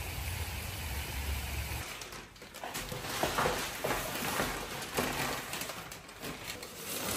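A steady low engine-like hum, typical of a car interior, cuts off about two seconds in. Rustling and light clicks follow as purchased household items are handled and unpacked.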